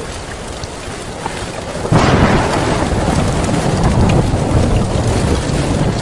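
Heavy rain falling steadily, with a sudden clap of thunder about two seconds in that rumbles on through the rest.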